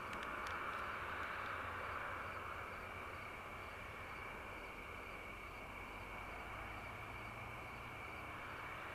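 Steady evening insect chorus: a continuous high, even drone with a faint low hum beneath it, and a few faint ticks about half a second in.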